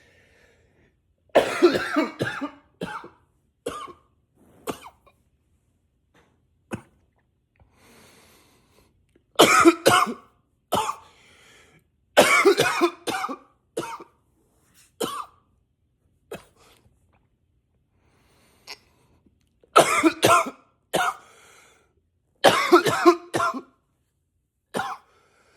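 A man coughing in fits, each a quick run of several coughs, about six fits with short pauses and faint breaths between them.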